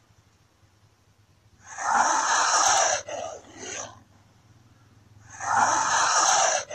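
Komodo dragon hissing: two long, loud breathy hisses a few seconds apart, the first followed by two short puffs of breath.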